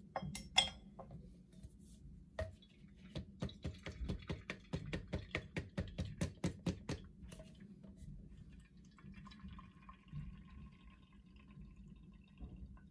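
AeroPress coffee maker being handled and pressed: a few metal clinks, then a quick even run of light taps for several seconds. Near the end comes a faint hiss and trickle as the plunger is pushed down and brewed coffee runs through the filter into the mug.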